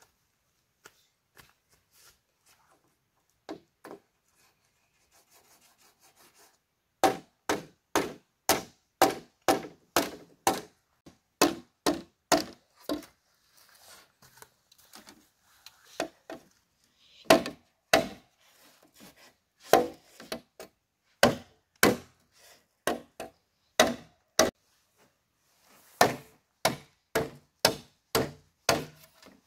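Sharp blows on bamboo, about two a second, in three runs with short pauses between, after a few quieter knocks in the first seconds.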